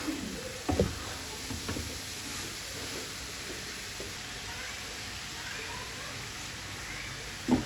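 Onion, garlic and tomato masala for daal mash sizzling steadily in a pot on the stove, with a couple of knocks in the first two seconds.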